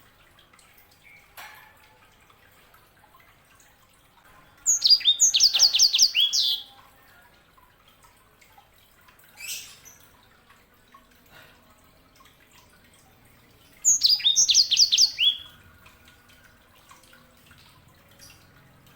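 Yellow-fronted canary singing: two bursts of rapid, repeated, downward-sweeping high notes about nine seconds apart, with a short single call between them.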